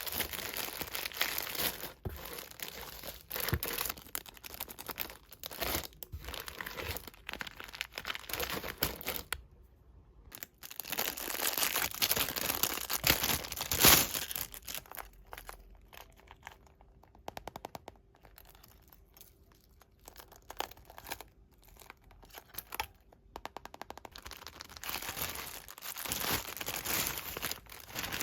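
Packaging of a toy delivery parcel crinkling and tearing as it is unwrapped, with many small crackles. There is a short pause about ten seconds in, and a quieter run of quick little crackles in the middle.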